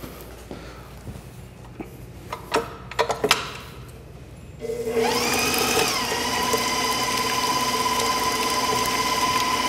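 Stand mixer switched on a little after halfway: its motor whine rises in pitch for about a second, then runs steadily as the paddle attachment beats boiled potatoes with butter and cream for mashed potatoes. Before it starts there are a few light knocks and clicks.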